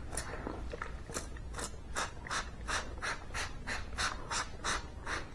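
Trigger spray bottle misting water onto a sanded walnut board, a quick run of short hissing sprays about three a second: wetting the wood to raise the grain before a final sanding.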